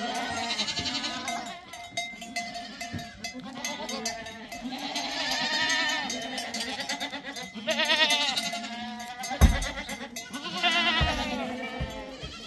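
Livestock bleating: several long, quavering bleats one after another, overlapping at times, with a single thump about nine and a half seconds in.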